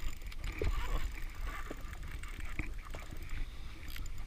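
Wind rumbling on the microphone over choppy water, with scattered light clicks as a spinning reel is wound in against a hooked fish.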